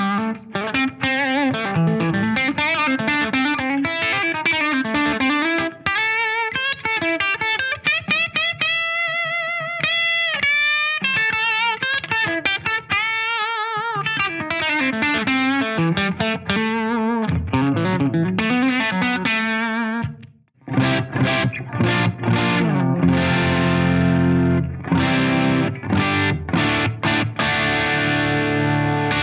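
Gibson solid-body electric guitar on its bridge pickup, with volume and tone full, through a fairly clean amp. It plays picked single-note lines, with a few held, vibratoed notes about a third of the way in. After a brief break about two-thirds in, it switches to strummed chords.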